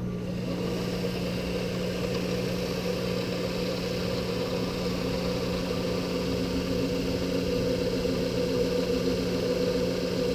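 Drill press running steadily with a constant hum while the bit is fed down through aluminum, set at 300 rpm for aluminum. The hum grows a little louder in the last few seconds as the bit finishes the cut.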